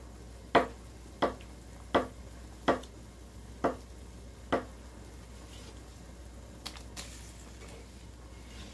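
Kitchen knife chopping a block of tofu on a wooden cutting board: seven sharp knocks of the blade hitting the board, about one every two-thirds of a second, then a couple of faint clicks near the end.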